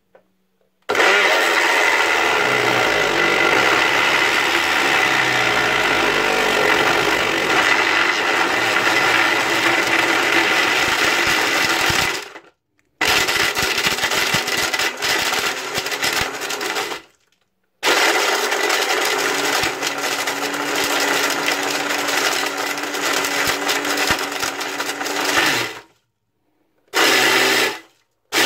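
Personal blender running with orange ping pong balls in its cup: the motor whines while the plastic balls rattle and crack against the jar and are broken apart by the blade. It runs in three long spells with sudden stops between them, then gives two short pulses near the end.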